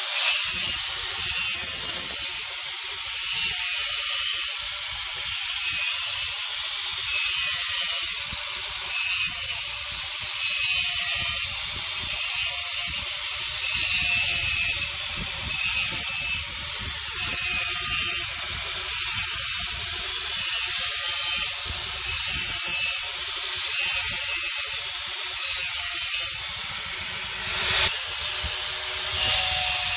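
Repeated back-and-forth rasping strokes of a hand tool working metal, a little under one stroke a second, with a sharp knock near the end.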